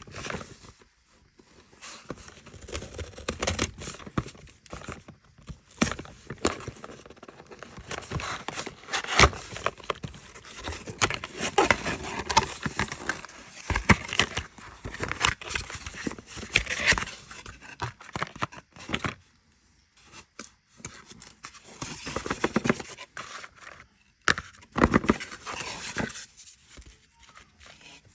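Packaging being handled and opened during an unboxing: irregular rustling, crinkling and scraping of paper and cardboard, with sharp clicks and knocks now and then and a couple of short pauses.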